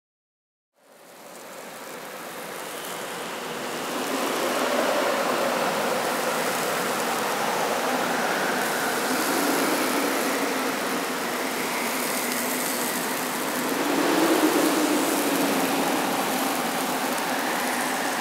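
A steady rushing noise fades in over the first few seconds and then holds, with faint wavering tones drifting through it.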